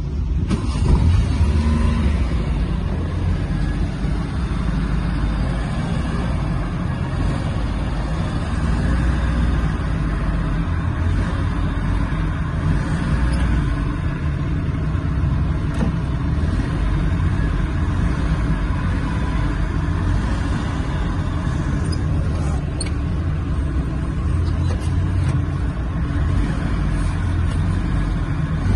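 Suzuki Mehran's small three-cylinder petrol engine running and being revved as the accelerator pedal is pumped, heard from inside the cabin. It is louder about a second in and otherwise holds a fairly even level.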